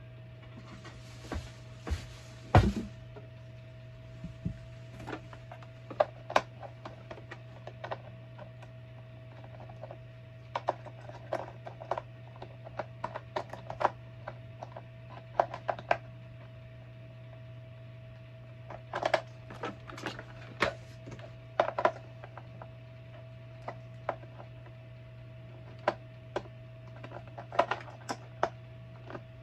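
Plastic parts of a new Bissell PowerForce Helix bagless upright vacuum being handled and fitted together by hand: scattered clicks and knocks, with a brief rustle near the start, over a steady low hum.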